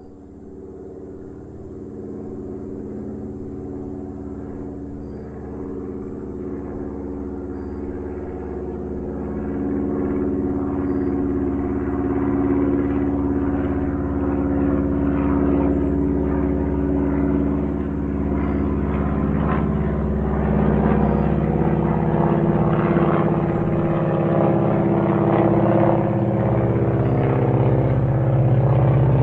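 Small propeller airplane's piston engine droning steadily, growing louder over the first dozen seconds or so and then holding loud.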